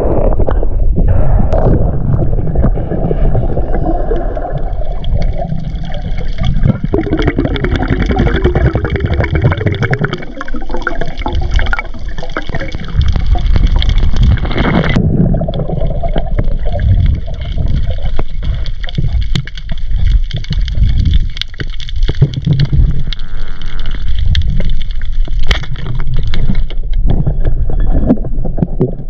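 Muffled rushing and gurgling of water around an underwater camera as a spearfisher swims along the reef, with a few sharp clicks scattered through it.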